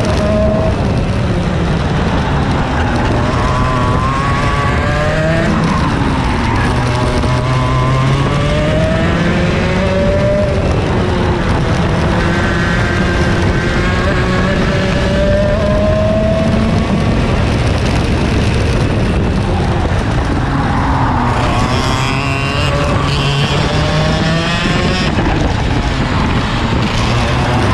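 Two-stroke racing kart engine recorded onboard, its pitch rising and falling again and again as it revs out on the straights and drops off into the corners. From about 21 seconds in, a second, higher engine note joins for a few seconds.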